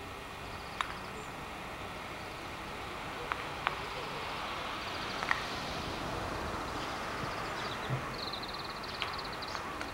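Outdoor ambience: a steady low rush of noise, with small birds giving short, rapid high trills several times and a few sharp ticks.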